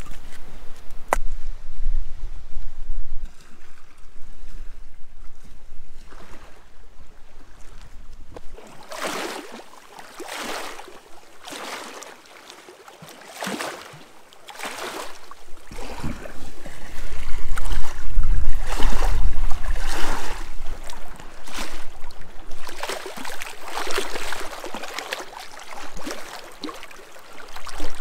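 Canoe paddle strokes, each stroke a swishing splash, about one a second from a third of the way in, with wind rumbling on the microphone in the second half. A single sharp knock just after the start.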